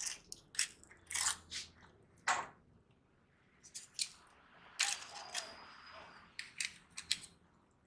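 Homemade slime being squeezed and pulled by hand, giving a string of irregular sharp sticky clicks and pops, with a short lull partway through.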